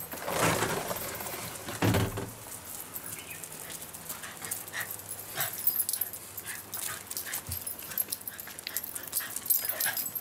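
Shiba Inu dogs on the move on concrete: quick ticking of footsteps and claws, with a few short whimpers. A loud rustle fills the first two seconds or so.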